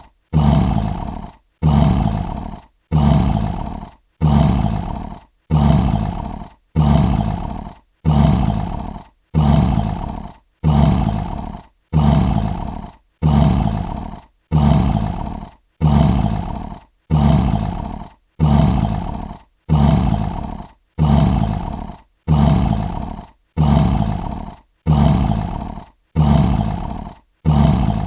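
A lion roar sound effect: the same short roar repeats about every 1.3 seconds, each one starting abruptly and fading away.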